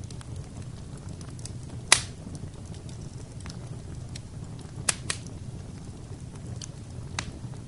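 Fire burning in a fireplace: a low steady rumble of flames with a few sharp crackles, the loudest about two seconds in, two close together near the middle and one more near the end.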